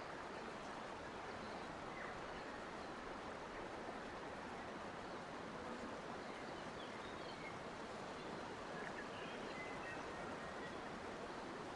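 Forest nature ambience: a steady, even rushing background with faint, brief bird chirps scattered through it.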